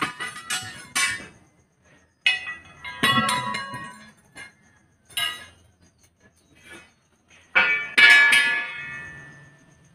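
Steel tyre levers clanking against a truck wheel's steel rim and lock ring: a string of sharp metallic clangs. The loudest, about eight seconds in, rings on for over a second.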